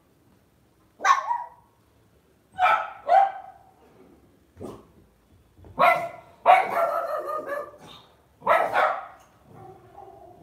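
Lhasa Apso puppy yapping: about seven short, high barks at uneven gaps, beginning about a second in, one of them running longer in the middle.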